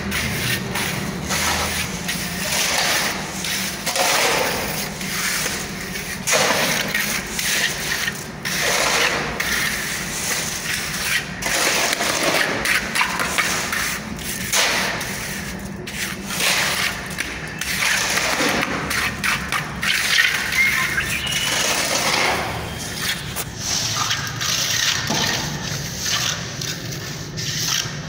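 Steel hand trowel scraping and smoothing fresh cement plaster in repeated strokes, about one every one to two seconds.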